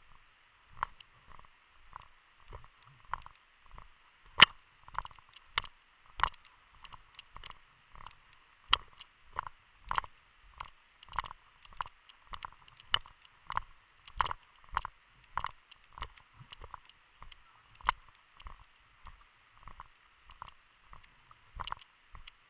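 Footsteps of a person walking steadily through grass and brush, about one and a half steps a second, each step a dull thud with a light click or knock of carried gear. A steady faint hiss runs underneath.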